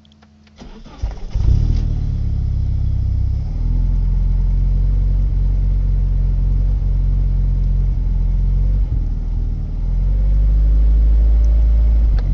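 1990 Nissan 240SX's 2.4-litre four-cylinder engine cranked and started about half a second in, then running at a rough idle whose speed varies up and down. The rough idle began after all four fuel injectors were replaced; the mass airflow sensor was cleaned, the throttle position sensor checked and no vacuum leak found, so the cause is unknown.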